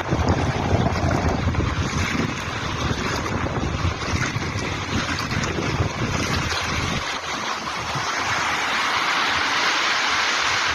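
Sea waves breaking and washing in, with wind buffeting the microphone as a low rumble that fades out about seven seconds in, leaving the hiss of surf swelling near the end.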